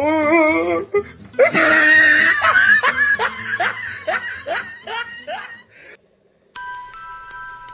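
A woman's high, wavering wail breaking into a long cackling laugh, about three syllables a second that fade away: the stock laugh of a kuntilanak ghost. After a brief silence near the end, a chiming tune starts.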